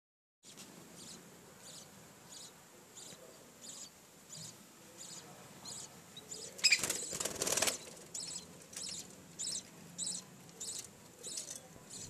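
Newly hatched budgerigar chicks in a clay-pot nest cheeping in a steady, high-pitched rhythm, about three cheeps every two seconds. A louder, denser burst about a second long comes just past the middle.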